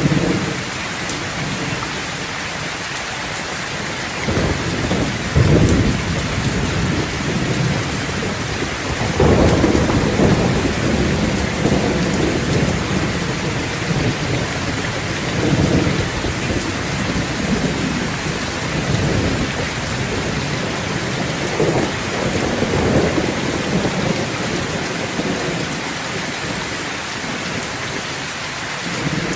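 Steady rain falling, with thunder rolling again and again underneath: low rumbles start about four seconds in and keep swelling and fading every few seconds. The strongest come about five and ten seconds in.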